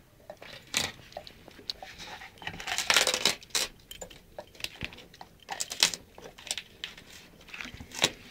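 Dog ripping wallpaper off a wall with its teeth: irregular tearing and crinkling of paper, loudest in a long rip about three seconds in.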